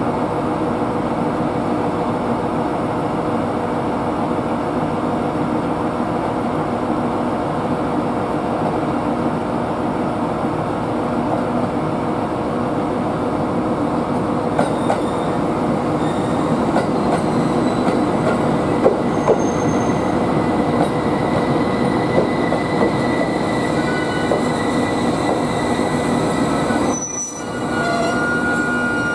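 JR East 701 series electric train pulling into a station: steady running noise from the wheels and motors. In the second half thin high-pitched squeals join in as it brakes to a stop.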